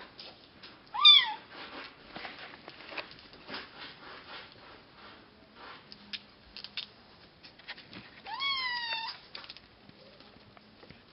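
Bengal kitten meowing twice, a short loud meow about a second in and a longer one that rises then falls near the end, over faint scratching and rustling of kittens' claws and paws on cloth.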